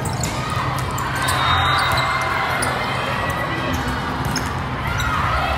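Volleyball rally sounds in a large hall with several courts: balls being struck and bouncing as short sharp hits over a constant murmur of players' and spectators' voices.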